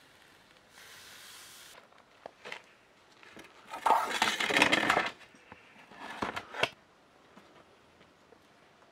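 A metal baking tray scraped across the floor of a wood-fired stone oven as it is pulled out, loudest about four seconds in, with a shorter second scrape and clatter about two seconds later.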